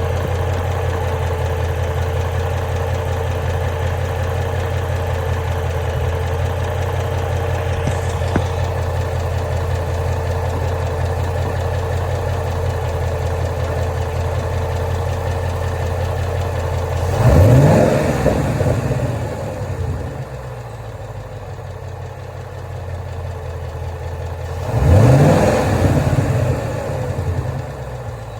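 2011 Mustang GT's 5.0-litre Coyote V8 idling with a tick noise, blipped twice, about 17 and 25 seconds in, each time rising briefly in pitch and falling back to idle.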